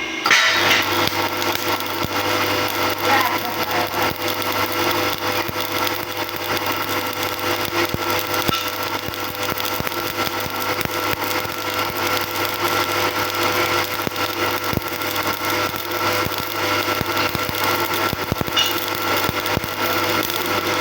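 Electric arc welding: the arc strikes just after the start and then crackles and sizzles steadily, with a constant low hum beneath it.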